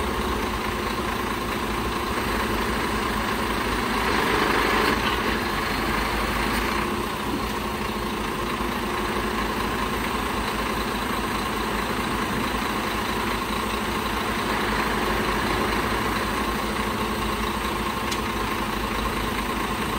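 Iveco Trakker AD260T45 truck's diesel engine running steadily at idle while its loader crane is worked. It grows louder for a few seconds about four seconds in, then settles back.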